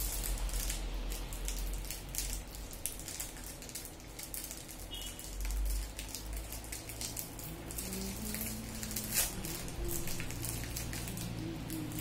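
Small, scattered clicks and taps of plastic parts and wiring as an opened hair dryer is handled during repair, over a low rumble.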